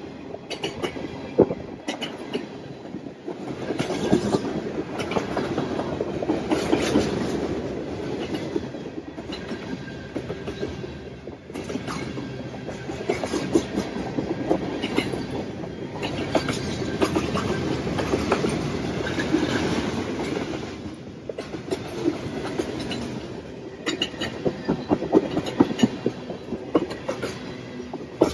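A long freight train's cars rolling past, wheels clicking and clattering over the rail joints, the rumble swelling and dipping as car after car goes by.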